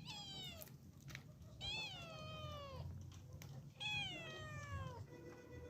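A domestic cat meowing three times: a short meow, then two longer drawn-out ones, each sliding down in pitch.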